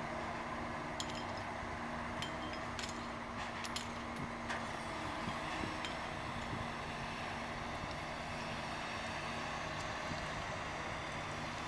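Steady industrial hum of machinery, with a few faint metallic clinks in the first half.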